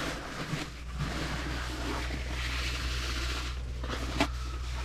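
Paper rustling and crinkling as it is spread around the base of a fridge to soak up defrost water, over a steady low hum, with one sharp knock about four seconds in.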